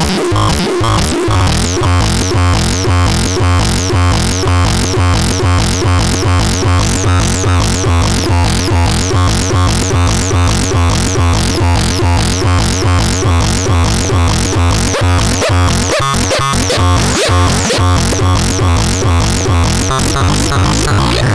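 Vodňanské kuřátko synthesizer playing a fast, even pulsing electronic pattern, about four pulses a second, over a steady low drone, with harsh noisy sound on top. There is a brief break in the pattern about two-thirds of the way in.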